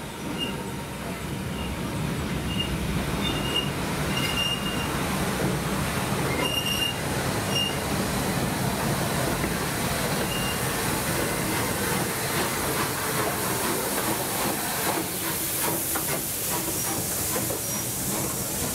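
Rebuilt Merchant Navy class steam locomotive 35006 and its coaches drawing into the platform: a steady rumble of wheels on the rails, with brief high squeals in the first half and a hiss that grows toward the end.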